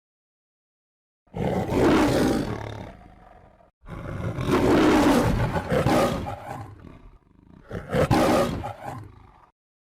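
A lion roaring three times, each roar rough and gravelly and tailing off over two to three seconds.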